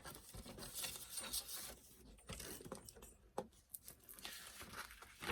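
Doll packaging and accessories being handled: light rustling with a few small clicks and taps.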